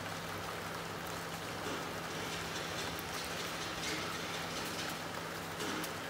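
Steady rain falling and pattering on surfaces, with a few separate drops ticking now and then.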